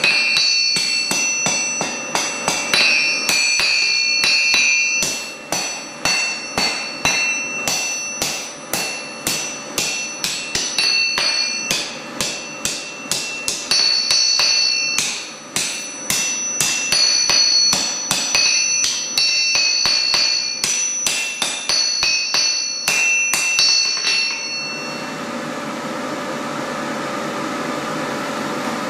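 Blacksmith's hand hammer striking a red-hot iron bar on an anvil in quick, steady blows, two or three a second, each blow with a high metallic ring from the anvil. About 24 seconds in the hammering stops and a steady mechanical hum is left.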